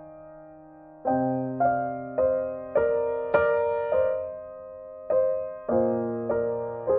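Slow solo piano music. A held chord dies away, then from about a second in single notes are struck about twice a second over sustained bass notes, each note fading, with a brief pause a little past the middle.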